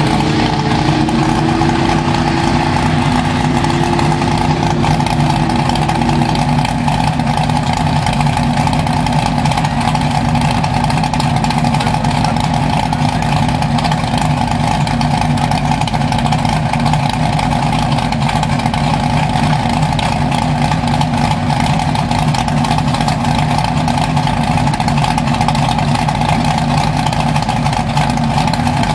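Lifted mud truck's engine running steadily at idle, a loud unbroken drone. A second engine note wavers alongside it for the first six seconds or so, then drops out.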